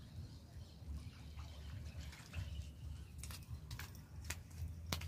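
Low, steady wind rumble on the microphone, joined from about three seconds in by a handful of sharp, irregular clicks.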